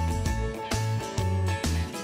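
Background music with a steady beat, about two beats a second.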